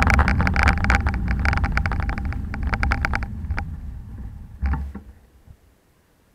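Bicycle coasting to a stop, with wind rumbling on the camera microphone and rapid clicking from the rolling bike that slows, thins out and fades as it halts. A single knock comes about four and a half seconds in.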